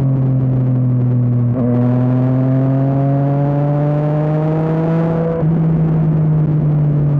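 Yamaha MT-09's inline three-cylinder engine through an Akrapovič exhaust, under way. It changes gear about a second and a half in, the revs climb steadily under acceleration, and there is another gear change near five and a half seconds.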